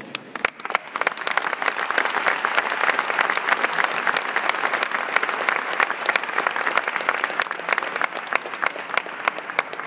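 Audience applauding: many people clapping together, building up over the first second and then going on steadily.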